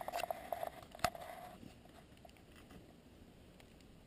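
Climbing tree stand creaking and clicking against the trunk as the hunter on it moves up the tree, with one sharp metal clank about a second in. The creaking stops after about a second and a half.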